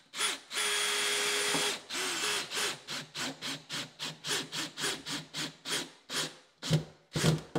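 Cordless drill driving a screw through the cabinet back into the wall: one steady run of about a second, then a quick string of short bursts, about three or four a second, spacing out near the end as the screw goes home.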